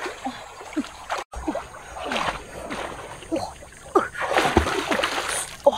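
Water splashing and sloshing, with a string of short, low, falling calls or vocal sounds throughout.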